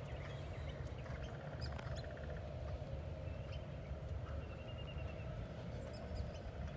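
Birds chirping faintly over a steady low rumble, with a rapid trill about a second in.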